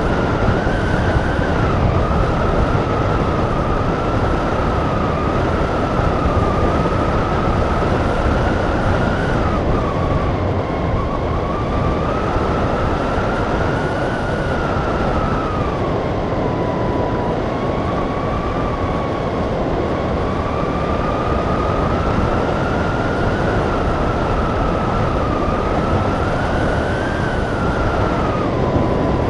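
Airflow rushing past a hang glider in flight, buffeting the microphone with a steady rumble, over a whistle that slowly rises and falls in pitch.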